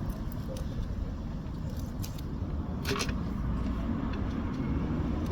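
A few light clicks and knocks of metal parts and hand tools being handled, with one sharper clink about three seconds in, over a steady low rumble.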